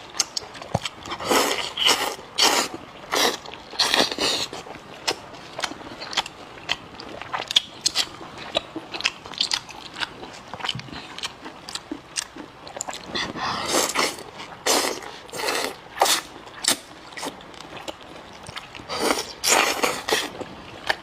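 A person eating close to the microphone: repeated biting and chewing sounds in irregular clusters.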